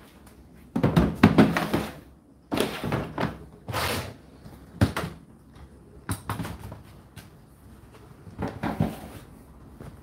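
The plastic condenser water container of an Indesit condenser tumble dryer being slid back into its drawer slot, scraping and knocking, with a sharp knock about five seconds in. Smaller plastic knocks follow near the end.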